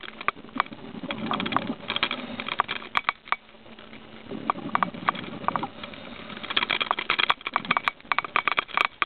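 Scuba regulator breathing heard underwater: bursts of exhaled bubbles rumbling and crackling, about three in a row a few seconds apart, over a faint steady hum.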